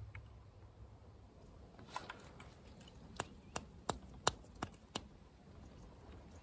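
A quick run of six sharp clicks, about a third of a second apart, preceded by a couple of fainter clicks; otherwise quiet.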